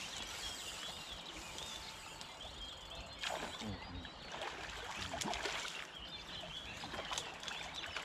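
A hooked asp splashing and thrashing at the river surface several times while it is played close to the bank, over steady birdsong.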